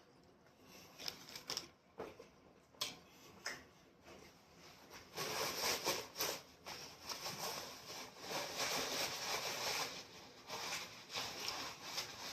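Close-up eating sounds: crunchy chewing of chips, with a few sharp clicks at first and then two longer spells of dense crackling crunching.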